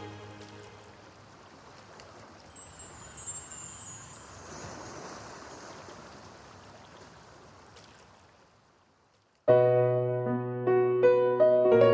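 Korg Nautilus synthesizer playing combination presets: a held chord dies away into a soft airy noise wash with high glittering tones that fades almost to silence, then about nine and a half seconds in a new electric-piano-like patch starts with struck chords and notes.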